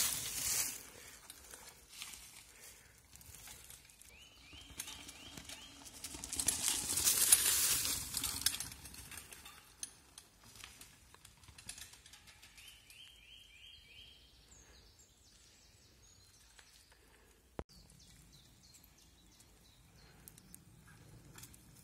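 Mountain bike tyres crunching over dry fallen leaves and dirt as the bike rolls close past, once at the start and again about seven seconds in. In between and afterwards, a quiet wood with short trills of birdsong.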